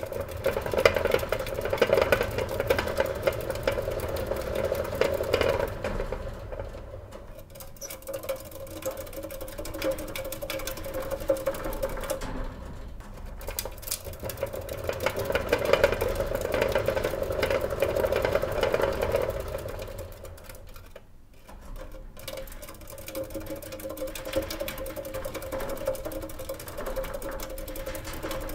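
Siberian chipmunk running in a plastic Silent Wheel exercise wheel: a steady, fast rattling whir with the patter of its feet, in runs that stop and start. About three quarters of the way in, the new Silent Wheel Flat takes over and runs more quietly.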